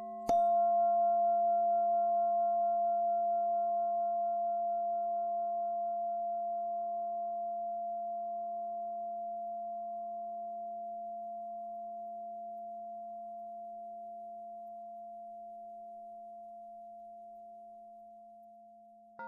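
A bell-like meditation tone struck once, its several ringing pitches fading slowly over a steady low drone. A new strike comes right at the end.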